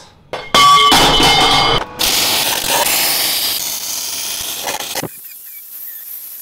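An abrasive chop saw cuts through steel pipe for about a second, with a ringing whine. Its blade is worn, and the user says it needs replacing. A MIG welder's steady crackling hiss follows for about three seconds, then an angle grinder grinds the steel more quietly about five seconds in.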